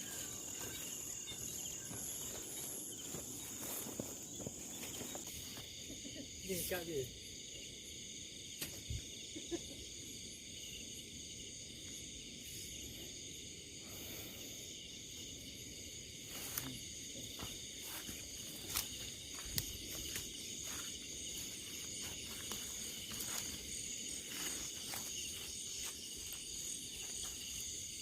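Insects chirring steadily in several high-pitched bands, with a few faint clicks and knocks scattered through.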